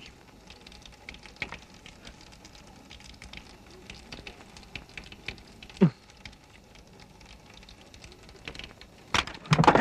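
Sparse faint ticks and taps over low hiss, with a short falling sound just before the middle, then a cluster of louder clicks and knocks near the end.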